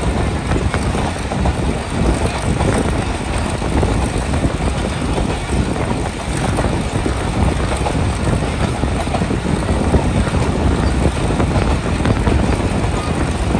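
Passenger train running along the track: a steady low rumble of wheels on rails with constant rattling.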